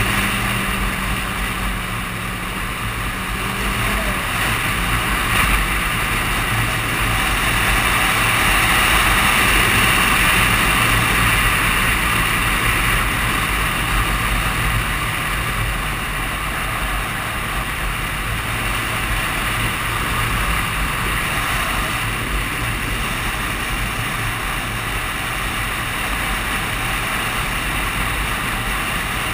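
Wind noise buffeting a helmet-mounted camera on a Suzuki Katana 750 motorcycle, with the bike's inline-four engine running steadily underneath at cruising speed. The wind noise swells for a few seconds around the middle.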